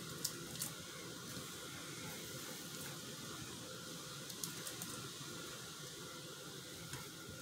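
Pot of seafood boil butter sauce simmering on the stove: a faint steady hiss, with a few light clicks early on and again about four and a half seconds in.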